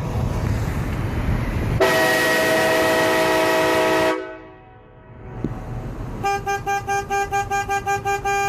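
Train horn blasting a loud chord of several notes for about two seconds over a vehicle's low road rumble, then, after a short lull, a rapid string of short single-pitch horn toots, about six a second.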